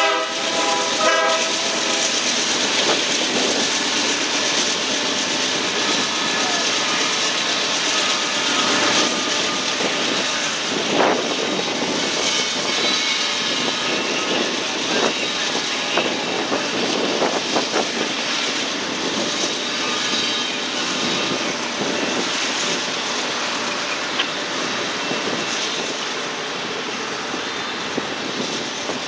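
Loaded coal hopper cars of a freight train rolling past at speed: a steady rumble of wheels on rail with scattered clicks and clanks.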